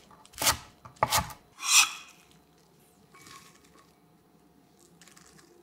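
Kitchen knife slicing through a bunch of garlic chives onto a wooden cutting board: three crisp strokes in the first two seconds, then faint rustling of the cut chives.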